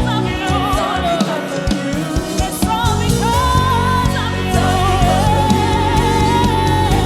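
Live gospel worship music: a lead singer holding long notes with vibrato over a full band with drums and keyboards.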